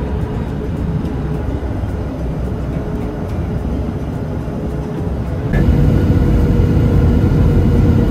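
Cabin noise of a Southwest Boeing 737 heard from a window seat over the wing: a steady rumble of engines and airflow on the descent. About five and a half seconds in it jumps suddenly louder and stays so, with the aircraft rolling out on the runway after landing.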